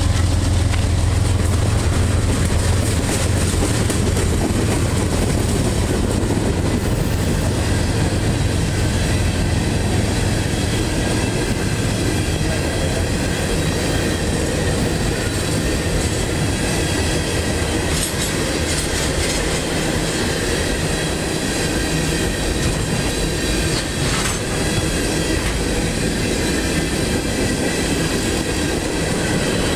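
Freight train tank cars rolling past close by: a steady rumble and rattle of steel wheels on rail, with a few sharp clicks over rail joints. A strong low rumble eases after the first few seconds.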